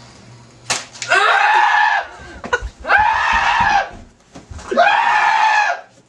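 Three loud, high-pitched screams, each about a second long, rising and falling in pitch, one after another.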